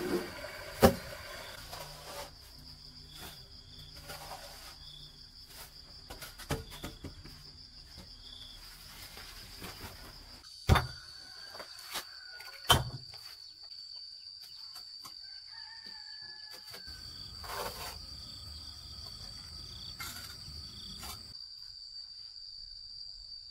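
Steady high-pitched trilling of insects, crickets, running without a break, with a few sharp knocks: one about a second in and two around the middle.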